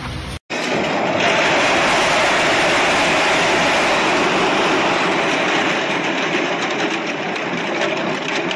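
Hollow bamboo poles clattering and rattling continuously as a truckload slides and tumbles off onto a heap. The clatter starts abruptly about half a second in.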